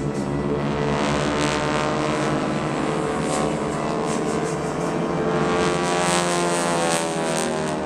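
Radial engines and propellers of a formation of North American T-6 Texans running overhead. Their pitch bends up and down as the aircraft sweep past.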